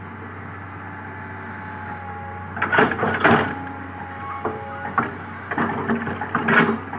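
Komatsu PC200 hydraulic excavator running steadily, with two spells of scraping and knocking from its bucket working the ground: one about three seconds in and one near the end.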